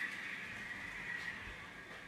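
N scale FPA4 diesel locomotive's onboard sound decoder playing a steady diesel engine running sound through its tiny speaker, thin and without low rumble, easing off slightly.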